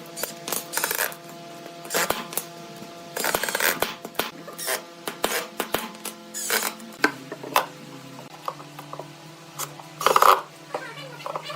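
Irregular clicks, knocks and clinks of hard tools and parts being handled during workshop hand work, with a louder cluster of knocks near the end.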